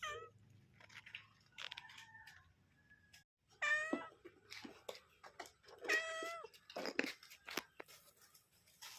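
Domestic cat meowing several times, with two loud, drawn-out meows in the middle and quieter short calls and small knocks between: a mother cat calling for her kittens.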